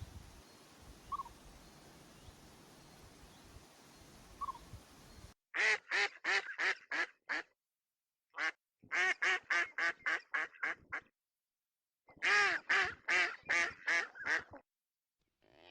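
A duck quacking in three quick runs of five to eight quacks, each run starting loud and tailing off, after a few seconds of faint background with a couple of tiny chirps.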